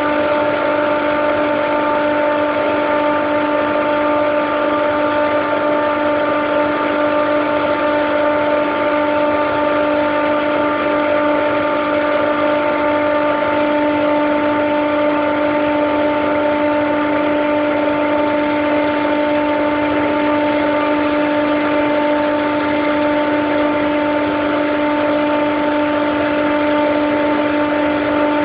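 Daikin/McQuay EWLDJ235-SS chiller compressor running steadily: an even mechanical hum with a strong, unchanging whine around 300 Hz and its overtones, a noise its owner calls strange.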